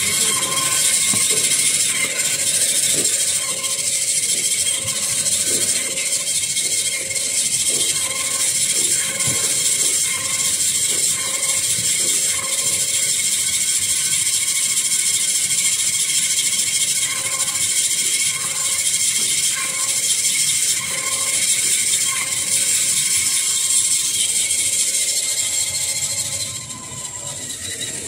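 XY AI 300 semi-automatic toilet-roll band saw cutter running, its band blade giving a steady high hiss and whine, with occasional light knocks as the paper log is pushed through and cut. The noise falls away near the end.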